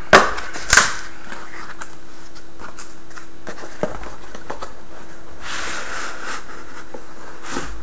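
A cardboard retail box being handled and opened by hand: two sharp knocks in the first second, a light tap near 4 s, and a brief scrape of cardboard and paper as the end flap opens and the contents slide out, over a steady background hum.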